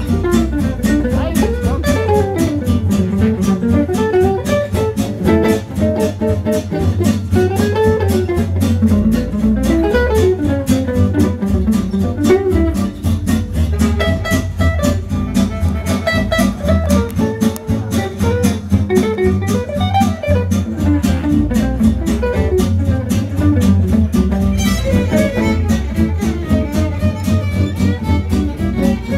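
Live gypsy jazz (Sinti swing) on acoustic guitars and violin: a wandering melody over a steady strummed rhythm-guitar beat.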